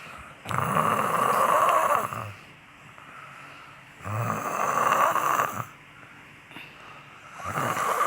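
A sleeping person snoring: three loud snores, each with a low rattle, coming about every three and a half seconds with quieter breathing in between. The last one starts near the end.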